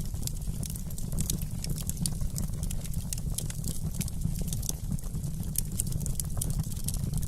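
Wood fire crackling: a dense scatter of sharp little snaps over a steady low rumble of burning.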